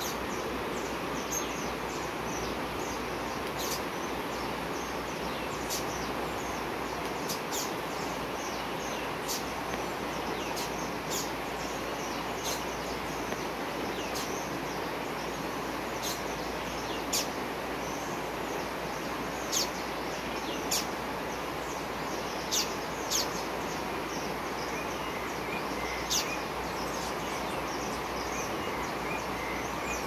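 Steady rush of a flowing river, with short high bird chirps every second or two, a handful of louder ones in the second half.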